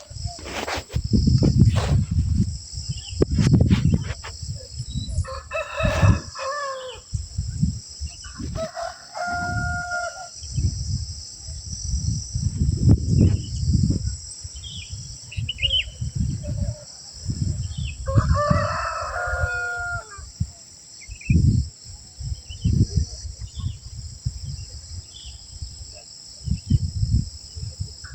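A bird calling three times, each call a pitched cry about a second long, over irregular low rumbles and a steady high hiss.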